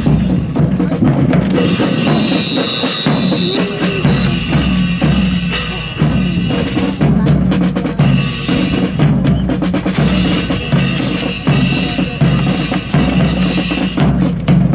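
Military marching drum cadence on snare and bass drum, keeping a steady beat for a rifle drill team's march.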